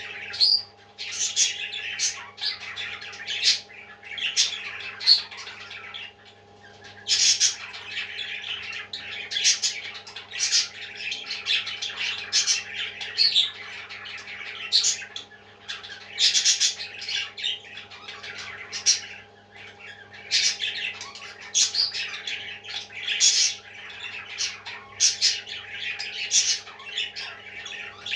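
Parrot chicks squawking again and again, a call every second or two, over a steady low hum.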